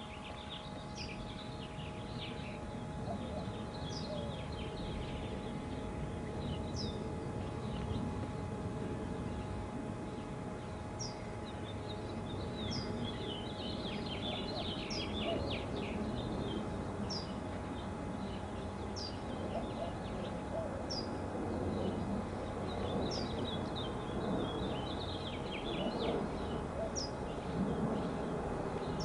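Small birds chirping and twittering, with a short high falling note repeated every second or two, over a steady faint hum and outdoor background noise.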